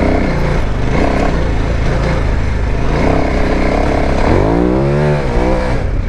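KTM 990 Adventure R's V-twin engine running under way off-road; about four seconds in it revs up and falls back.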